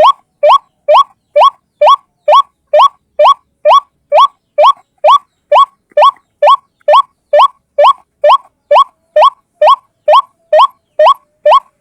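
White-breasted waterhen calling: one bird repeats a short, upward-slurred note about twice a second in a steady, unbroken series.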